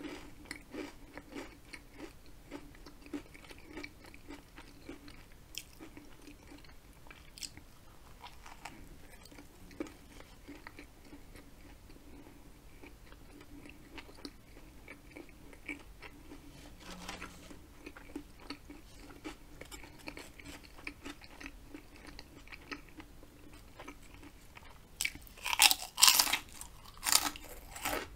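Close-up chewing of a soft sub sandwich: quiet, frequent small clicks and wet mouth sounds, then a loud crackly crunching for about two seconds near the end.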